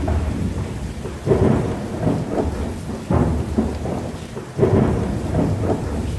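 Thunderstorm: rain with rumbles of thunder swelling up again and again, about every second or two.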